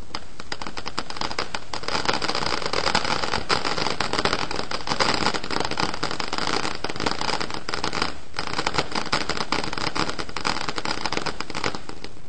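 Ground fountain firework spraying sparks with a dense crackling hiss. It builds up about two seconds in, drops off briefly near the middle, and dies out just before the end.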